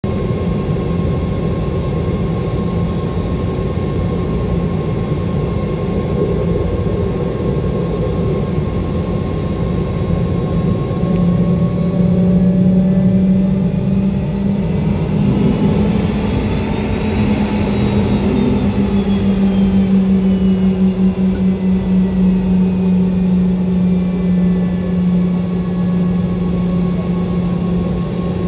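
Jet airliner engines running steadily with a low hum. About halfway through the sound swells and whooshes, its pitch sweeping as if a jet passes close by, then settles back to a steady run.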